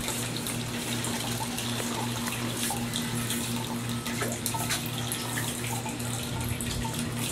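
Water running through a storm drain below a metal grate: a steady rushing hiss, with a steady low hum underneath.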